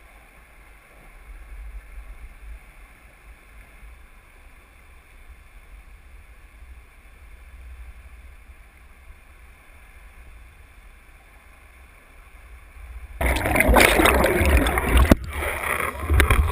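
Muffled underwater rumble heard through a GoPro's waterproof housing as it hangs on a drop line in deep water. Late on it turns suddenly into a loud rush of splashing water and wind as the camera is pulled out through the surface.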